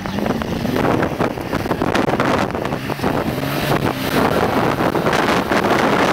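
Modified Land Rover Defender 90's engine running under load on a steep grassy slope, its pitch rising a little about a second in. Wind buffets the microphone.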